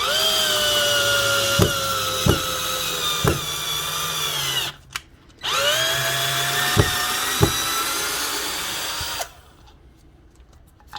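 Ryobi HP108L 8-volt cordless drill driving a screw into wood. The motor whines up to speed and runs for about four and a half seconds, its pitch sagging slightly under load, stops briefly, then runs again for about four seconds. A few sharp clicks come during each run.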